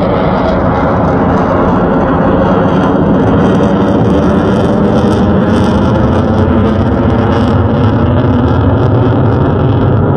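Fighter jet flying overhead: a loud, steady jet engine rumble with an irregular crackle on top.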